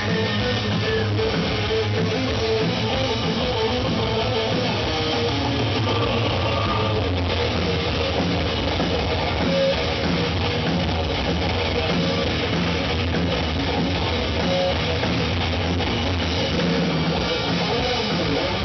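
Live rock band playing an instrumental passage: electric guitars over a drum kit, at a steady level throughout.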